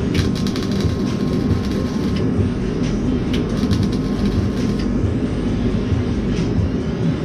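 Wire-feed (MIG) welder stitch-welding a sheet-metal cab corner patch panel: two crackling bursts of about two seconds each with a short pause between them, over a steady low rumble.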